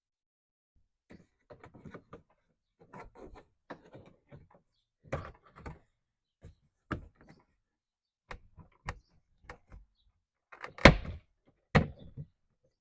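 Scattered clicks, taps and knocks of a truck's door panel and trim being fitted back on by hand, with two louder thumps near the end.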